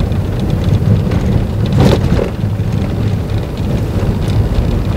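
Road noise inside a moving car: a steady low rumble of tyres on a rough country road, with one short knock about two seconds in.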